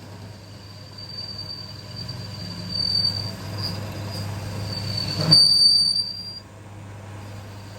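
A machine in a metalworking shop running with a steady high-pitched squeal over a low hum; the squeal breaks off and comes back, and a louder rush sweeps through about five seconds in.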